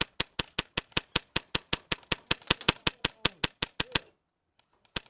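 Airsoft gun firing a steady string of rapid shots, about six a second, stopping about four seconds in and starting again near the end.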